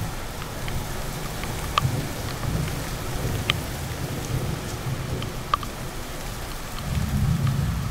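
Heavy rain falling steadily over a low rumble, with a few sharp taps of drops hitting the phone about two, three and a half and five and a half seconds in. The low rumble swells near the end.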